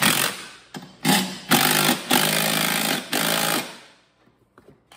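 Cordless impact driver running a bolt in in short bursts, hammering as it tightens: four runs in about three seconds, the longest near the middle.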